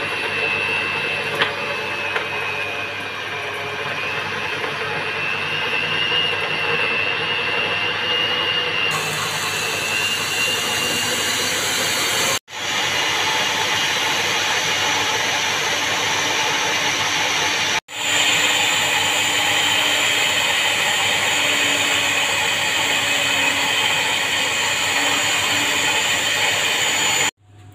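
Electric mixer running steadily, its beaters creaming butter and sugar until fluffy. The motor's whine cuts out for an instant twice partway through, then stops near the end.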